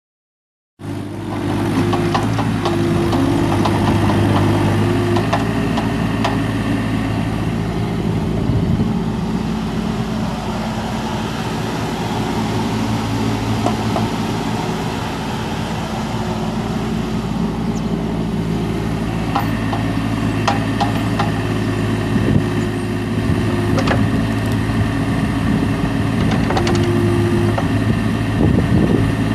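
Kubota 1.7 L three-cylinder diesel engine of a Bobcat 329 compact excavator running steadily, with a higher tone that comes and goes and scattered clicks and knocks.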